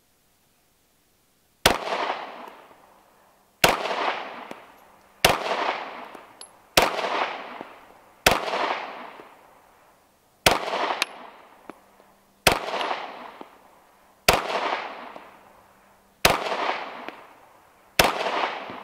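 Ten shots from a Glock 19 9mm pistol in slow aimed fire, one every one and a half to two seconds, each trailing off in an echo.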